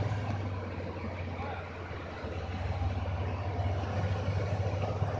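Heavy vehicle's diesel engine running steadily with a low, rapid throb, easing off slightly for a moment about two seconds in.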